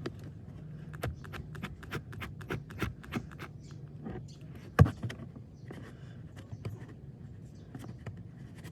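Irregular clicks, taps and light knocks of plastic parts being handled, as in working a car's cabin air filter housing, with one much louder knock nearly five seconds in, over a low steady hum.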